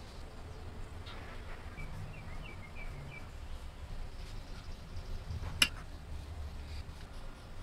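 Faint bird chirps, a short run of them about two seconds in, over a steady low room rumble, with one sharp click a little past halfway.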